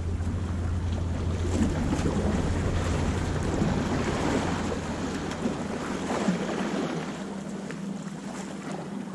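Wind buffeting the microphone in a steady low rumble, over surf washing against jetty rocks.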